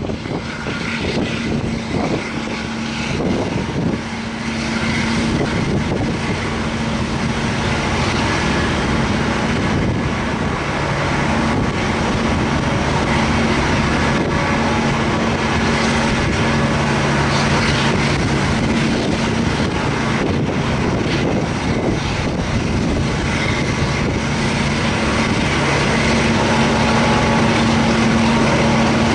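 MTU diesel engine of a KiwiRail DL-class diesel-electric locomotive revving, a steady heavy drone that slowly grows louder toward the end.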